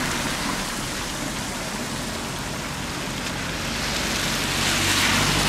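Thermal-spring water pouring from a fountain's lion-head spout and splashing steadily into a stone basin. Near the end a louder rush with a low hum builds over it.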